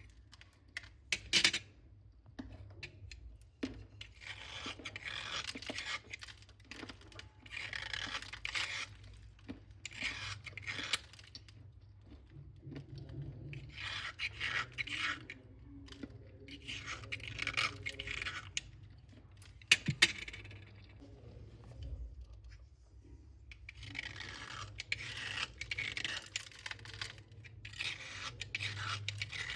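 Slate pencils being crunched in repeated bursts of gritty, crackly crumbling, each a second or few long with short pauses between. There are a few sharp snaps, one near the start and two close together about two-thirds of the way through.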